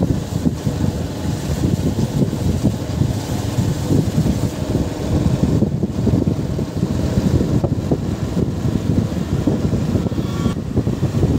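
Wind buffeting the microphone on a motorcycle ridden at speed, with the engine and road noise underneath in a steady rumble.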